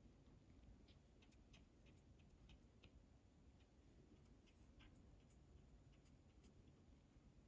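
Near silence: faint room tone with scattered soft ticks and clicks, from a nail-polish brush and gloved hands working on plastic press-on nail tips.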